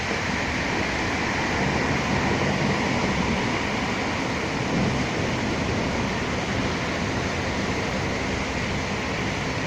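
Steady rain on a city street, mixed with the rumble and tyre hiss of traffic on the wet road, the low rumble swelling a little a few seconds in.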